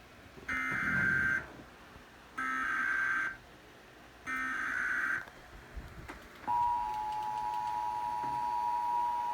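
Emergency Alert System SAME header: three bursts of screechy digital data tones, each just under a second long and about a second apart. About six and a half seconds in, the steady two-tone EAS attention signal begins, marking the start of a flash flood warning.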